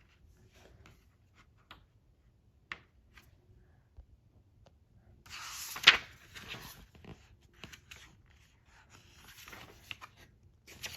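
Paper page of a picture book being handled and turned: a few soft clicks and taps, then rustling with a sharp snap of paper about six seconds in, and more rustling near the end.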